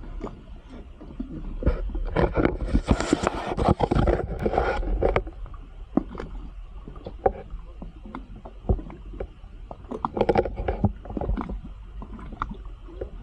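Sounds aboard a small fishing boat: a steady low rumble with scattered knocks and clatter, and a louder rush of noise from about two and a half to five seconds in.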